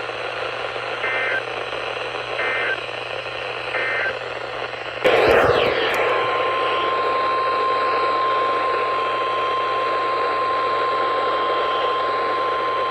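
Emergency alert broadcast over weather-radio hiss: three short warbling data bursts of the alert header, about a second and a half apart, then a crackle about five seconds in. A single steady alarm tone follows and runs on past the end, announcing a new warning message.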